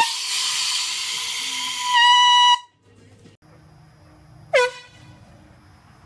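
Handheld air horn blast lasting about two and a half seconds, hissy at first and then a clear, louder tone, cut off suddenly. A second short, sharp tonal blast comes about four and a half seconds in.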